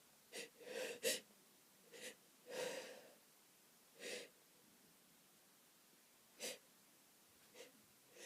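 A person's short sniffs and breaths through an itchy, allergic nose: about seven brief bursts a second or two apart, the sharpest and loudest about a second in.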